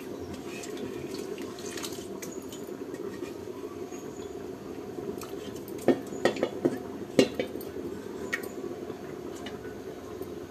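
Soaked rice tipped and scraped from a steel bowl into a steel pot of boiling water, over steady bubbling. There are a few sharp clinks of steel on steel about six to eight seconds in.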